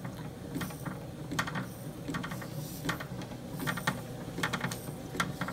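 Irregular mechanical clicking and ticking, some in quick clusters, from the Presto tape attachment mounted on a 1929 RCA transcription turntable, over a steady low hum.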